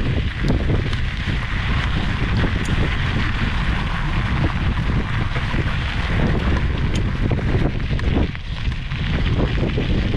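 Wind buffeting the microphone: a steady low rumble with a hiss on top, easing briefly about eight seconds in.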